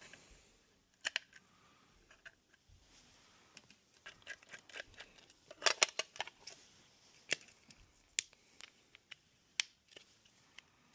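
Small sharp clicks, taps and scrapes of tools and parts being handled on a smartphone during a screen repair, coming in scattered bursts with a dense cluster about six seconds in.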